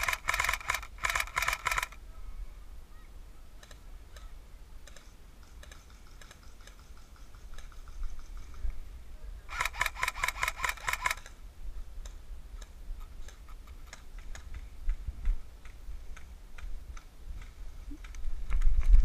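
Airsoft rifle firing rapid full-auto bursts of sharp clicks: two bursts in the first two seconds and another about ten seconds in, with fainter scattered shots between. A low wind rumble on the microphone rises near the end.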